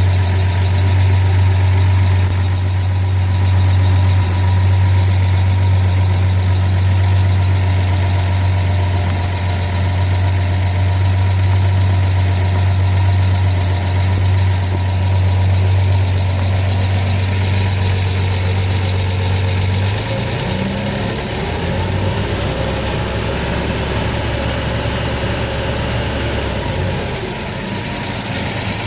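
Ford 300 inline-six engine running with a high-pitched chirp over its steady hum; the chirp has come back. The engine note shifts about two-thirds of the way through and returns near the end.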